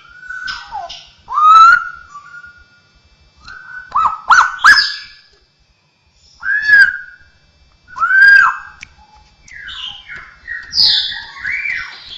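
Straw-headed bulbul (cucakrowo) singing: loud, rich whistled phrases that arch up and down, coming in separate bursts with short pauses between them.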